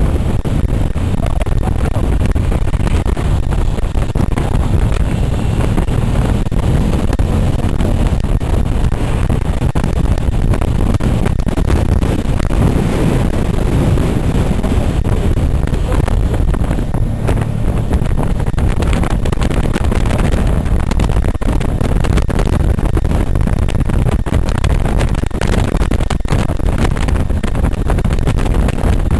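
Touring motorcycle riding steadily at road speed, its engine drone mixed with a steady rush of wind on the onboard microphone.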